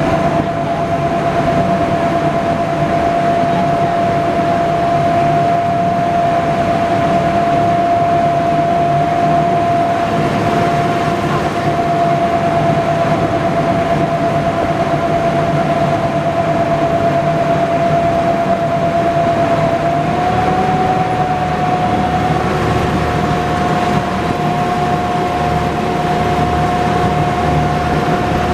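A World War II DUKW amphibious truck under way on the water, its original gasoline engine running steadily with a low drone. A steady high whine rides over it and steps up slightly in pitch about twenty seconds in.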